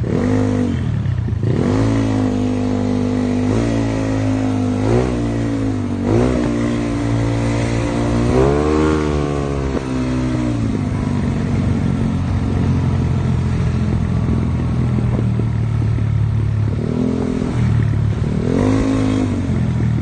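Yamaha Mio scooter's single-cylinder four-stroke engine heard on the move, revving up and dropping back again and again as the throttle is worked, then holding a steadier note for several seconds before rising again near the end.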